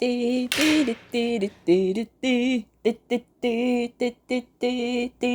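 A voice singing a simple tune in short, clipped syllables, stepping back and forth between a few notes.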